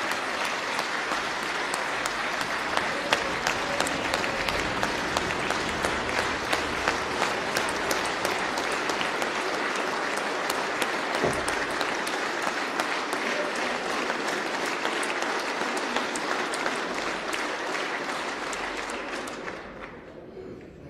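A large audience applauding, a dense patter of many hands clapping together, steady throughout and dying away near the end.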